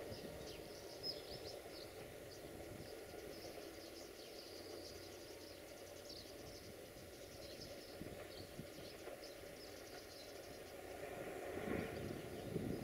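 Siemens Desiro diesel multiple unit approaching in the distance, heard as a faint low rumble that grows louder near the end, with scattered high chirping over it.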